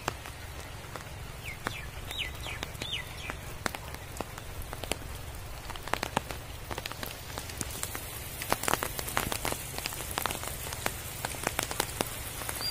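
Steady rain falling, with many sharp drop hits close by that come thicker from about eight seconds in. A few short high chirps about two seconds in.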